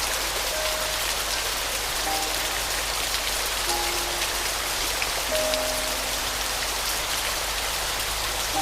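Steady rain falling, a dense even patter, with soft, sparse piano notes sounding over it, one or two at a time every second or two.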